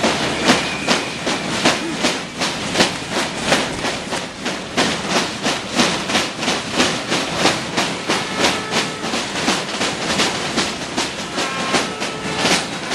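A protest crowd making a din of rapid, irregular banging and clattering, several strikes a second without a break.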